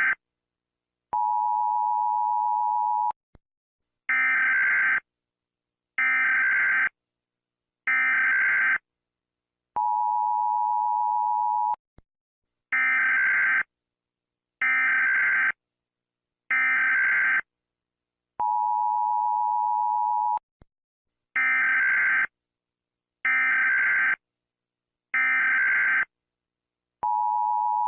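Electronic emergency-alert tone sequence: a steady low tone held about two seconds, then three short, higher, buzzy beeps, the pattern repeating three times with a fourth long tone starting near the end.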